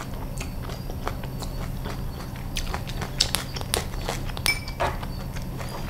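Close-miked chewing of crispy fried rice-flour cake (bột chiên), with many short sharp crunches, more of them in the second half.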